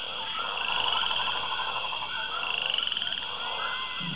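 Rapid trilling animal calls: one trill about a second in and a second, slightly rising trill about two and a half seconds in.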